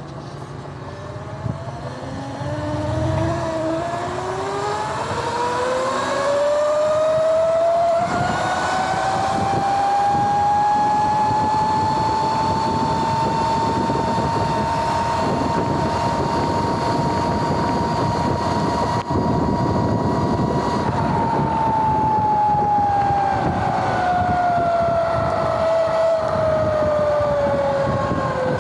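Sur-Ron electric dirt bike's motor and chain primary drive whining under way, over wind and tyre noise. The whine rises in pitch for about ten seconds as the bike speeds up, holds steady while cruising, then falls as it slows near the end. The louder, noisier whine comes from a primary drive converted from belt to chain.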